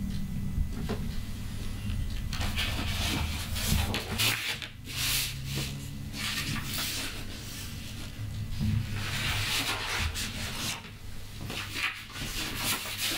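Large sheets of drawing paper being lifted and turned over one after another in a stack, each turn a papery swish and rustle, about five times.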